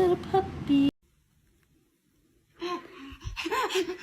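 A woman's singing breaks off suddenly about a second in. After a second and a half of silence, a child's breathy laughs and gasps begin.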